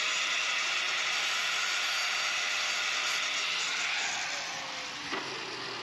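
Steady hiss of a welding arc tacking the metal tubing of a boat's solar arch. The hiss eases slightly about four seconds in, with a faint click about five seconds in.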